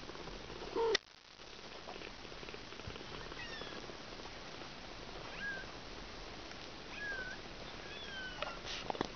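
Kitten mewing while nursing: a louder short call about a second in, then several thin, high, short squeaks spread through the rest.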